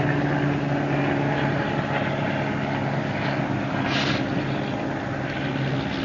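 Steady low hum and hiss from an old reel-to-reel style recording during a pause in the talk, with a short brighter hiss about four seconds in.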